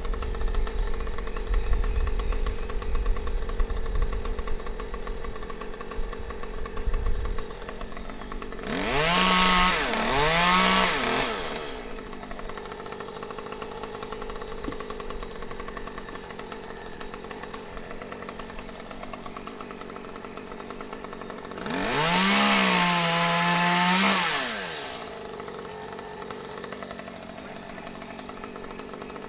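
Chainsaw idling, revved up to full throttle twice for two to three seconds each, the pitch climbing, holding, then dropping back to idle. A low rumble runs under the idle for the first several seconds.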